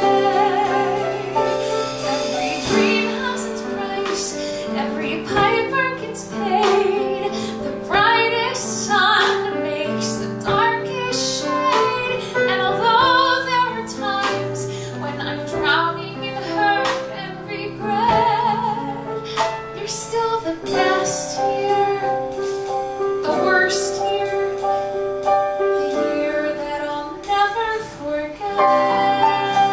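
A woman singing a musical-theatre song with piano accompaniment.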